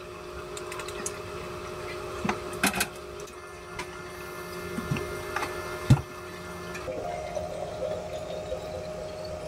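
Espresso machine pump humming steadily while a shot extracts, with a few knocks and clatters from handling plastic cups of ice, the loudest about six seconds in. About seven seconds in a different, higher steady hum takes over as a water-purifier tap fills a plastic bottle.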